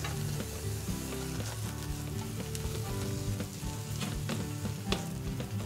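Turmeric paste sizzling in a stainless steel pot over medium heat as the last of the water cooks off and it thickens, with a silicone spatula stirring and scraping the bottom in short scrapes and taps. Soft background music runs underneath.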